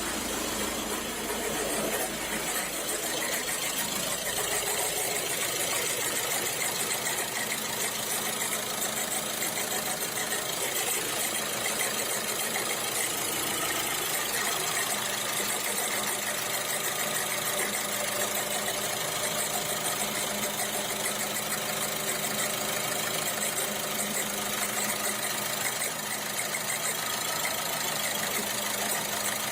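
VW Golf 6 1.6 TDI diesel engine idling with an irregular metal-on-metal knocking from around the alternator belt. The knock comes from the alternator's overrunning clutch pulley, which has begun to seize.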